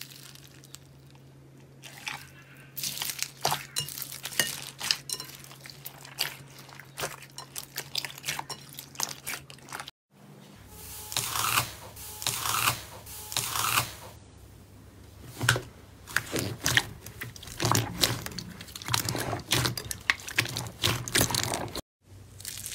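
Hands squeezing and pressing slime in bowls: crunchy crackling and popping, first foam-bead slime (floam), then after a short break a blue slime with a quicker run of squelchy pops.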